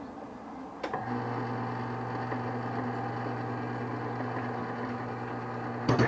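An electric workshop motor switches on with a click about a second in and runs with a steady hum; a sharp clatter near the end.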